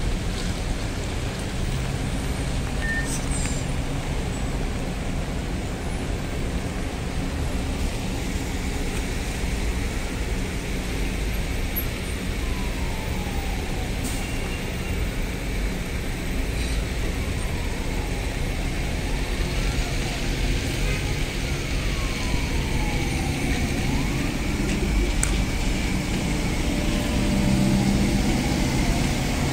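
Trolleybuses and traffic on a wet city street: a steady hiss of tyres on wet road and vehicle noise. Through the middle, an electric whine slides down and back up in pitch several times as trolleybuses slow into the stop and pull away. A low hum grows louder near the end as a trolleybus draws up close.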